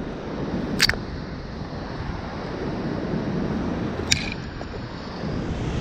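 Brush and twigs scraping and snapping against a body-worn camera: two sharp clicks, about a second in and about four seconds in, over a steady rushing noise.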